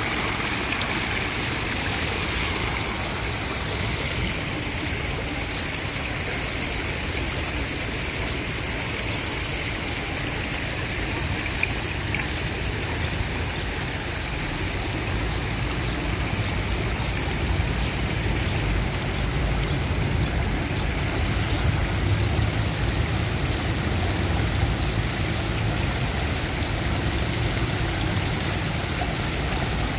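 Water from a tiered stone fountain and its spray jets splashing steadily into the basin. A low rumble of road traffic grows stronger about halfway through.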